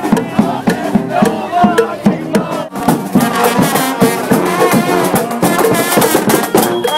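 Parade marching band playing: drums keep a steady beat under horns.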